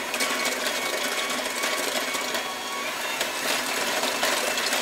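KitchenAid electric hand mixer running steadily, its wire beaters whisking egg, vegetable oil and sugar in a glass bowl.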